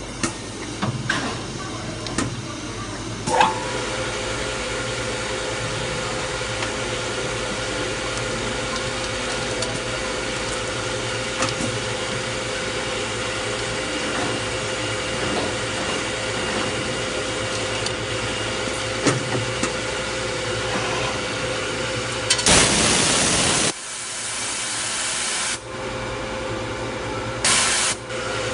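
CM0203B automatic bar chamfering machine running: a steady machine hum with a steady tone that sets in after a click about three seconds in, and a few sharp clicks of the mechanism. A loud burst of hiss lasting about a second comes a little after the twenty-second mark, the tone dropping out for a couple of seconds after it, and a shorter hiss comes near the end.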